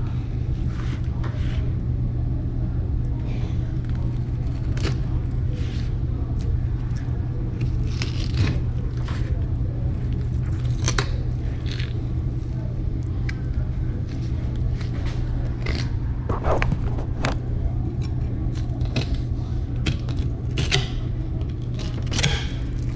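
Irregular short scrapes and clicks, several close together, over a steady low hum.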